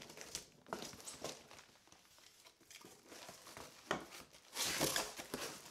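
Cardboard box being opened by hand: faint scattered scrapes and taps of cardboard and tape, a sharp tap about four seconds in, then a burst of crinkling packing material from about four and a half seconds in as the flaps are pulled open.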